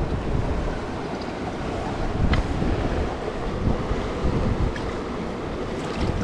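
Steady rush of a flowing river, with low, uneven wind buffeting on the microphone.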